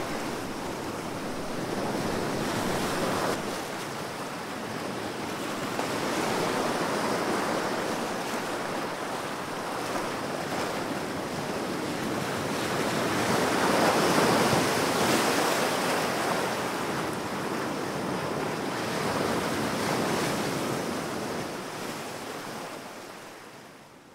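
Ocean surf: waves washing in, a steady rushing that swells and eases over several seconds, then fades out near the end.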